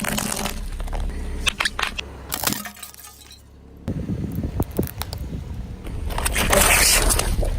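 A car tyre rolling over and crushing brittle objects: sharp cracks and breaking crunches, a short quiet gap about three seconds in, then a louder, denser crunching near the end.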